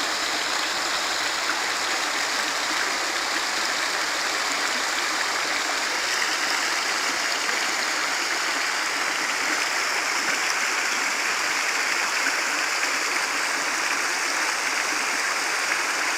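Mountain stream rushing and cascading over rocks, a steady unbroken rush of water.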